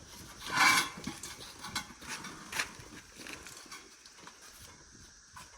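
A brief scraping rush about half a second in, followed by several scattered knocks and clicks: handling noise from working a tire and inner tube onto a baler wheel rim.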